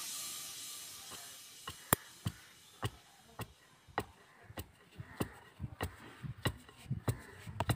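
Wooden pestle pounding pearl millet in a stone mortar: a string of short knocks at an uneven pace, about one every half second to a second, as the millet is crushed into flour. Background music fades out during the first second.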